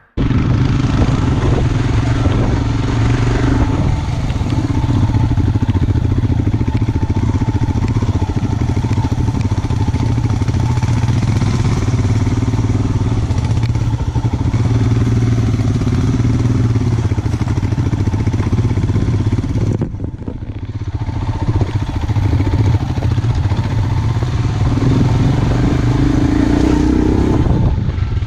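Royal Enfield Himalayan's single-cylinder engine running under way on a rough dirt track, with a steady hiss of wind and road noise over it. The sound dips briefly about two-thirds of the way through, then picks up again.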